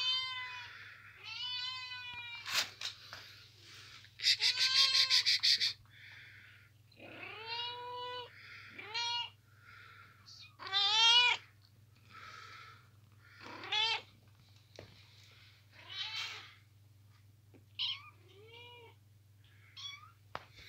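Young kittens mewing repeatedly, short high calls every second or two, with one longer, harsher cry about four seconds in. A faint low steady hum runs underneath.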